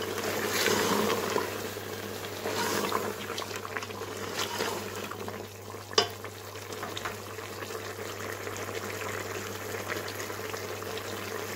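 Beef pieces in oil sizzling and bubbling in a metal pot while being fried down for curry, with a spatula stirring and scraping through them in the first few seconds. One sharp knock about six seconds in.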